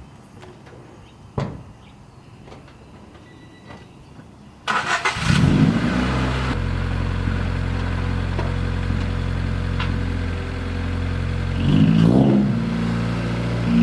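Honda Civic EG hatch's D15Z1 1.5-litre SOHC VTEC four-cylinder, breathing through a 4-2-1 header with no catalytic converter and a Megan Racing DS cat-back exhaust. About five seconds in it cranks briefly, catches and flares up, then settles into a steady idle, with a short rev about twelve seconds in.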